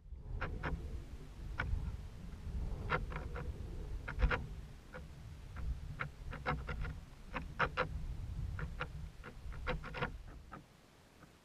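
Irregular light clicks and ticks over a low rumble, picked up by a high-altitude balloon payload camera in flight: the payload and its camera mount creaking and knocking as it swings. The rumble drops away near the end.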